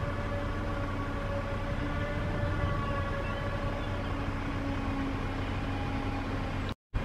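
John Deere 8600i self-propelled forage harvester running steadily as it chops grass and blows it into a trailer, a steady mechanical drone with several held tones, mixed with the tractor pulling alongside. The sound cuts out completely for a split second near the end.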